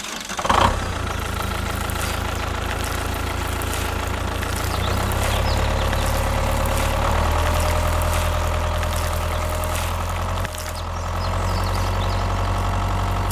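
An engine idling steadily, its low hum shifting slightly in pitch a few times. It starts abruptly and cuts off sharply at the end.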